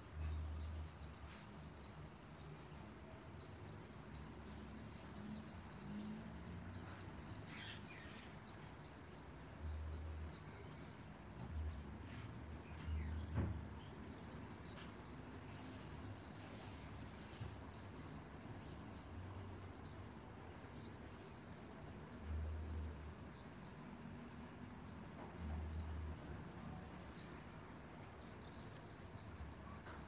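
A continuous shrill, high-pitched twittering of many birds calling over one another, with short low rumbles now and then underneath.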